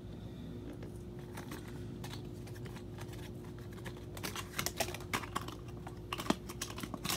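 Scattered light clicks and rattles of a diecast model car being handled and taken out of its packaging, getting busier about four seconds in, over a faint steady hum.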